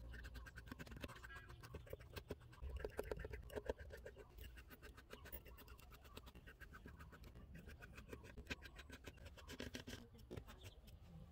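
Faint clicking and scratching of a precision screwdriver turning small screws out of a smartphone's lower board cover, many small ticks in a row.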